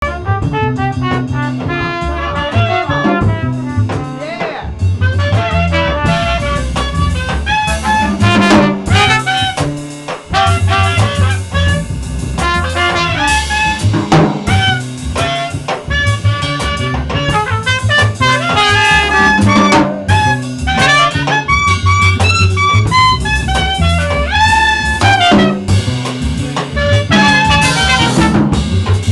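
Live jazz combo playing: trumpet and saxophone lines over upright bass, drum kit and congas, with a brief dip in level about ten seconds in.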